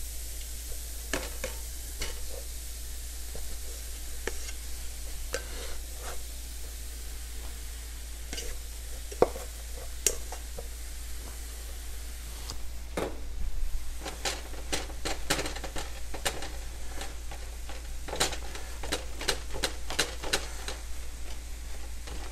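Cooked rice being scooped from a pot into a frying pan of sautéed vegetables, over a steady sizzle. A plastic spatula scrapes and knocks against the pot and pan, the knocks coming thicker in the second half as the rice is stirred in.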